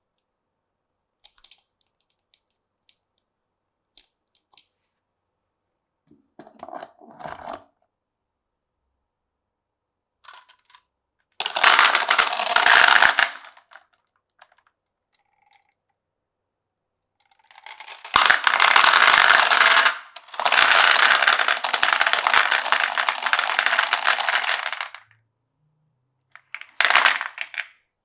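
Glass marbles rolling and clattering through a wooden marble run. A few light ticks come first, then bursts of loud rolling rattle, each lasting a few seconds, the longest about five.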